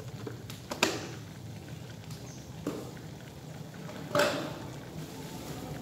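Wok of vegetable soup simmering on the stove with a low, faint bubbling patter. Two short sharp knocks or clinks cut through it, one about a second in and a louder one about four seconds in.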